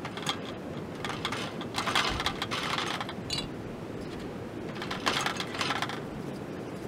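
Seasoning rattling in a small handheld shaker as it is shaken over flatbread dough, in two spells of quick rattling shakes.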